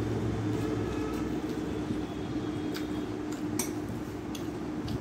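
Eating rice by hand from a steel plate: fingers mixing rice against the plate, with a few light clinks in the second half, over a steady low hum.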